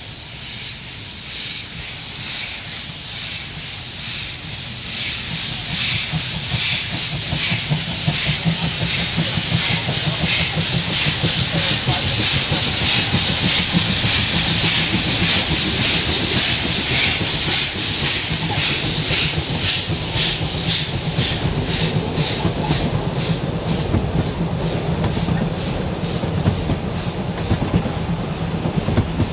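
Narrow-gauge steam locomotive 99 1782-4 pulling away and passing close by, its exhaust chuffs quickening from about one a second to several a second over a hiss of escaping steam. Near the end the carriages roll past with wheel clatter.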